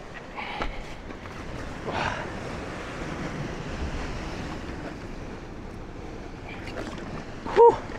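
Waves breaking on a rocky shore, with wind on the microphone. A brief loud cry rings out near the end.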